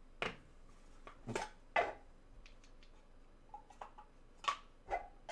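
Thick trading cards being handled: a handful of short, sharp clicks and taps, irregularly spaced.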